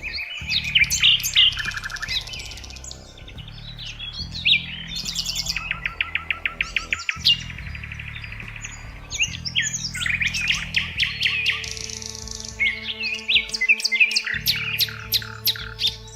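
Several songbirds chirping and calling. About four seconds in, and again around eight seconds, come rapid, evenly spaced trills. A steady low background runs underneath.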